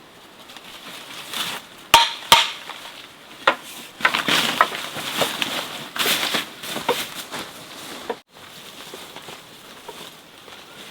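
Hard objects being handled: two sharp knocks about two seconds in, then a few seconds of clattering and scraping that dies down to scattered light ticks.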